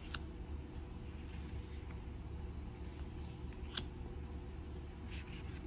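Faint rustling and sliding of tarot cards being handled, with one light tap about four seconds in, over a low steady hum.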